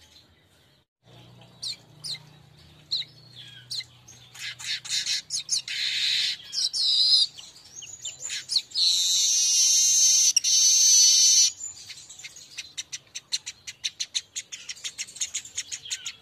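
Manyar weaver song: sharp, scattered chirps, then a long harsh buzzy wheeze in the middle, followed by a fast chattering run of rapid notes near the end.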